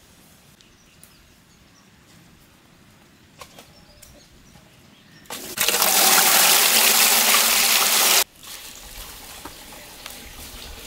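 Water poured in a heavy stream from a steel pot into another steel vessel: a loud splashing pour starts about five seconds in, runs about three seconds and stops abruptly. Before it there is only a faint outdoor background with a few small clicks.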